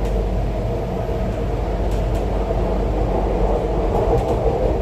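MTR Island Line Q-Train (CRRC Changchun-built metro train) running in the tunnel, heard from inside the carriage: a steady, loud running rumble of wheels and train body, with a constant hum and a few faint ticks.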